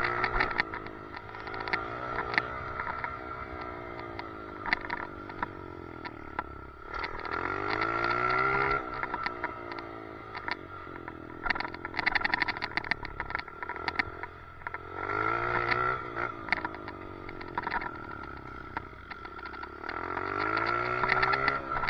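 Dirt bike engine heard from a helmet-mounted camera, revving up and falling off in repeated surges about every six seconds. Throughout there is a steady high whine and a stream of sharp rattling clicks, the weird noise from a loose helmet chin mount.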